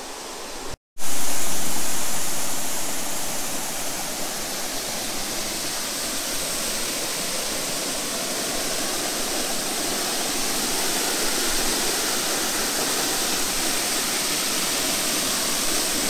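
Small waterfall: a steady rush and splash of falling water. About a second in the sound cuts out for a moment, then returns at its loudest and eases over the next few seconds to a steady level.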